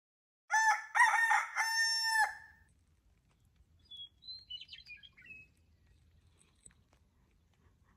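A rooster crows once, a cock-a-doodle-doo of about two seconds in three parts, followed by a few faint, high bird chirps.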